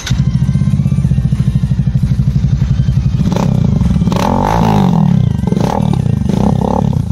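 Royal Enfield Super Meteor 650's parallel-twin engine running through an aftermarket exhaust, with a steady loud throb at idle. About halfway through the revs rise and fall.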